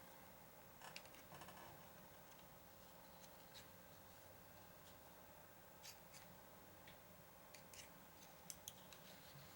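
Near silence with faint, scattered small clicks and taps: the metal parts of a folding knife and small tools being handled during reassembly.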